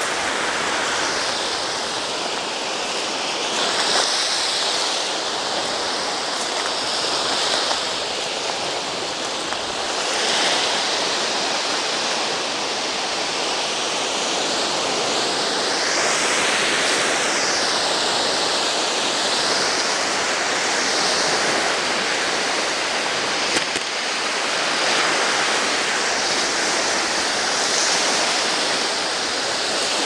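Black Sea surf breaking on a sand and shell beach after a storm: a steady wash that swells and falls every several seconds as each wave breaks.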